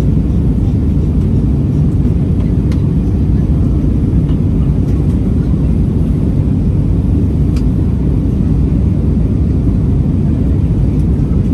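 Steady cabin noise inside an Airbus A320-200 ceo airliner in flight on approach: a loud, even low rumble of airflow and engines with no change in pitch, and a couple of faint ticks from the cabin.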